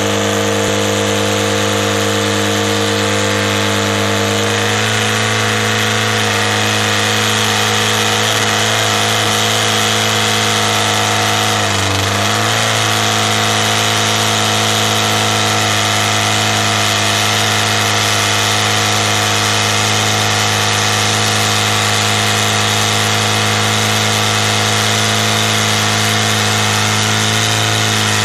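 Nitro-burning Top Fuel drag motorcycle engine idling loudly and steadily on its stand, warming up just after being fired up. Its pitch dips briefly and recovers about twelve seconds in.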